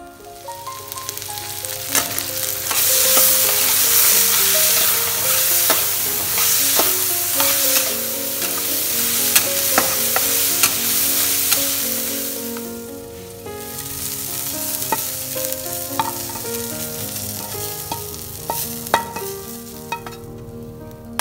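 Turkey berries sizzling as they fry with spices in a steel wok, a spatula scraping and clicking against the pan as they are stirred. The sizzle is loudest in the first half, dips for a moment about two-thirds of the way through, then goes on more softly.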